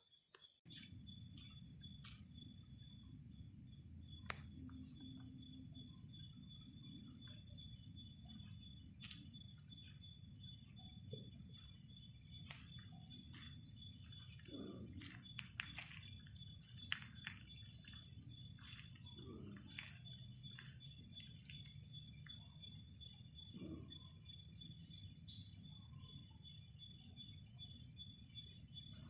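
Night ambience: a steady high-pitched chorus of crickets and other insects over a low background rumble, starting just under a second in. Scattered clicks and a few short low calls come around the middle.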